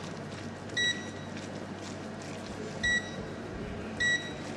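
Three short electronic beeps, each a single clear tone, about two seconds and then a little over a second apart.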